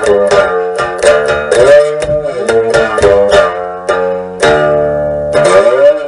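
Background music: a plucked string instrument, guitar-like, playing quick picked notes with some bent pitches, ending on a held chord that fades.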